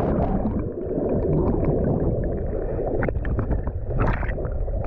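Muffled underwater sound from a GoPro action camera held under river water: a steady low rush of moving water with gurgling, and scattered clicks and knocks, the loudest about three and four seconds in.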